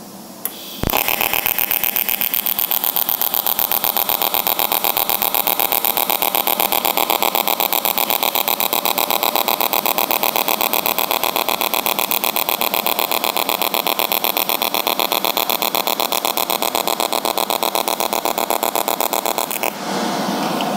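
AC TIG welding arc on aluminum, powered by an HTP Independence 210 AC/DC in AC-DC mix mode. The arc strikes with a click just under a second in, then gives a steady, harsh, rapidly pulsing buzz, and its tone changes shortly before the end.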